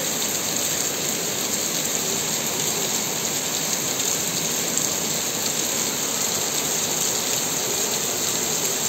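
Heavy rain pouring steadily onto a wet paved street, a dense, even hiss that holds at one level.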